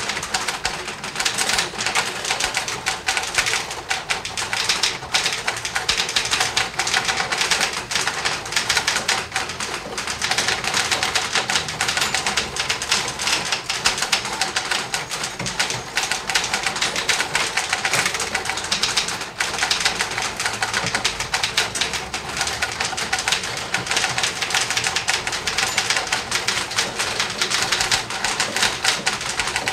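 Six typewriters typing at once in an office, a dense, continuous clatter of overlapping key strikes.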